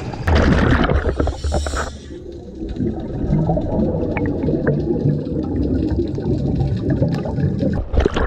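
Muffled underwater sound picked up by a GoPro in its waterproof housing as it floats up from a scuba dive. A loud rush of scuba bubbles lasts about the first two seconds. Then comes a low water rumble with scattered bubble clicks, and a sudden splash near the end as the camera breaks the surface.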